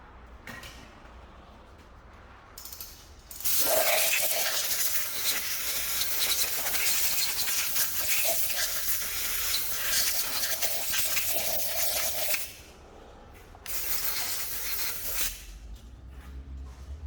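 Compressed air hissing out loudly in two blasts: a long one of about nine seconds, then a shorter one of about a second and a half after a brief pause.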